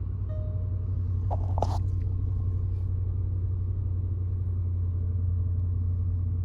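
Range Rover Sport L320's supercharged V8 idling steadily just after a cold morning start. A short chime beeps near the start, and a brief clunk comes about a second and a half in.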